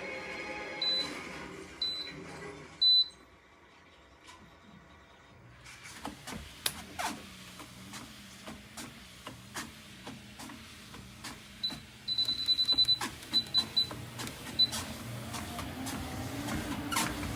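Electric treadmill's control electronics beeping: three single beeps about a second apart, then, after light clicking and knocking, a quick run of beeps. Near the end the treadmill motor starts with a steady, rising hum.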